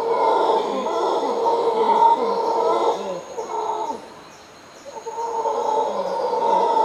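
Mantled howler monkey howling: deep, rough roars for about three and a half seconds, a short lull near the middle, then the roaring starts again and runs on.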